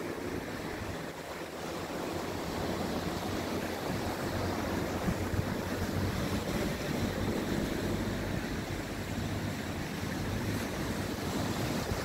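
Ocean surf washing steadily onto a sandy beach, with wind buffeting the microphone.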